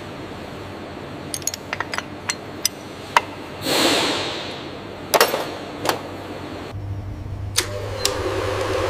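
Metal gearbox parts clinking as they are handled: a run of light metallic clicks and taps, a short rushing swell about halfway, then two sharper clinks. Near the end a steady machine hum with a droning tone takes over.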